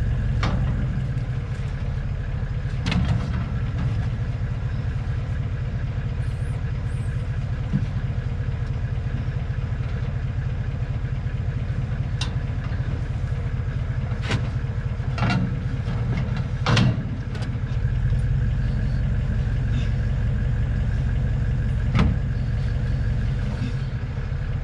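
Vehicle engine idling steadily, with a handful of short sharp knocks scattered through, the loudest a little past halfway.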